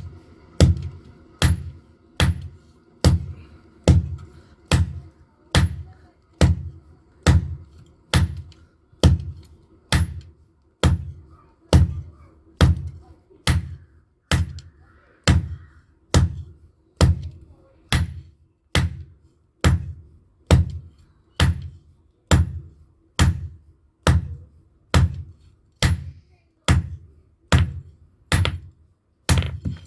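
A hammer striking hot iron on an anvil while forging a knife blade: a steady, even run of heavy, dull blows, about four every three seconds.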